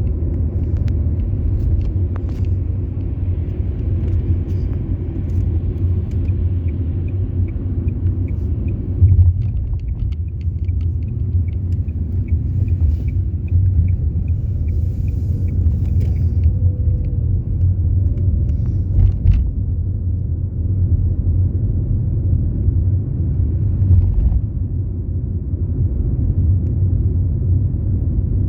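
Car driving, with the steady low rumble of engine and road noise. A light, fast ticking runs through the middle, and there are a few short knocks, the loudest about nine seconds in.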